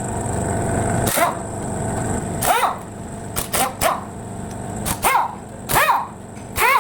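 A dog barking repeatedly, short sharp barks in quick succession from about two and a half seconds in, over a steady low hum.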